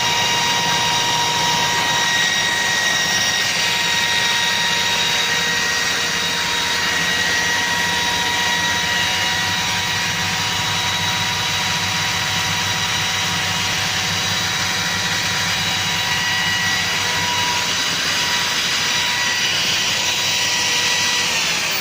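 Wheel grinder running steadily at speed with a high, even whine over a rushing hiss. Right at the end it is switched off and the whine begins to fall in pitch as it spins down.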